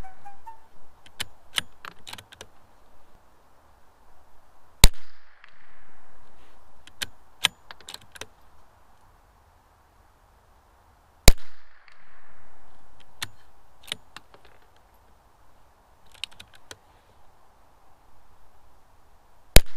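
Ruger Precision Rimfire bolt-action .22LR rifle firing three single shots, about 5 s, 11 s and nearly 20 s in, each followed by a short echo. Fainter clicks between the shots from the bolt being cycled.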